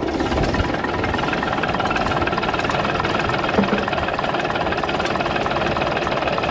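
Fiat-Allis 14B crawler dozer's diesel engine turning over and firing on its first start in four years, with one sharp knock about halfway through.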